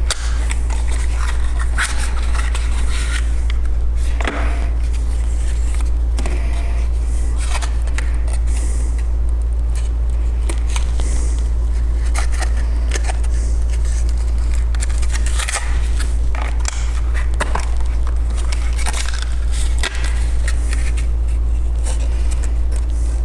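Packaging handled while a processor is unboxed: scattered rustles, crackles and scrapes of cardboard and plastic, with a few clicks, over a steady low hum.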